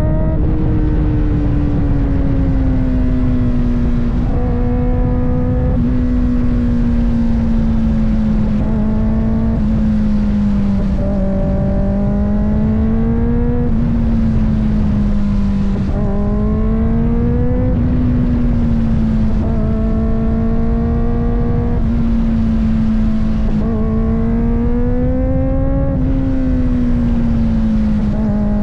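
Kawasaki ZX-4RR's 399 cc inline-four engine pulling under load on the road, its pitch climbing and then stepping back down several times as it works through the gears. Heavy wind noise on the camera's microphone runs underneath.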